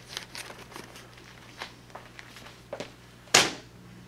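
Light rustling and small clicks of a plastic document folder being handled and moved, then one sharp knock about three seconds in as it is set down, over a low steady hum.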